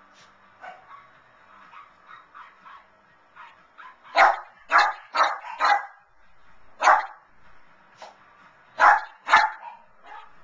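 Lhasa Apso barking excitedly at the TV: a run of four quick barks about four seconds in, a single bark about a second later, and two more near the end, with faint television sound underneath.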